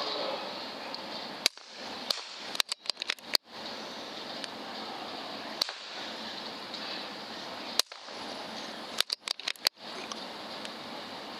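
Air rifle shots: a single sharp crack about a second and a half in, then a quick cluster of cracks broken by abrupt cut-outs, single cracks in the middle, and another quick cluster near the end, over a steady background hiss.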